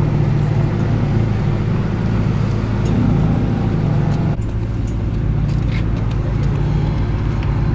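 Koenigsegg Agera RS's twin-turbo V8 idling steadily through its titanium exhaust. The sound changes abruptly a little past halfway.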